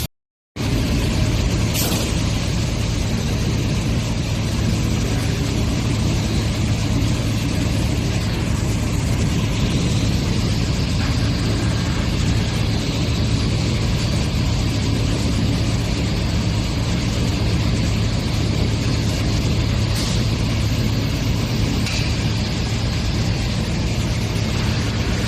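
Steady factory machinery running: a continuous low hum under a broad hiss, with a few faint clicks. It starts after a half-second dropout.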